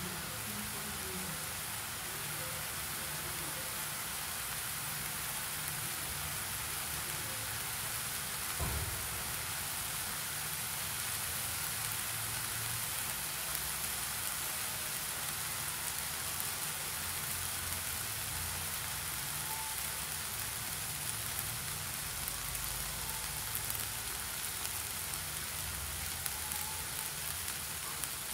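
Chicken pieces frying in oil in a pan, sizzling steadily as they are left to brown, with one brief knock about a third of the way through.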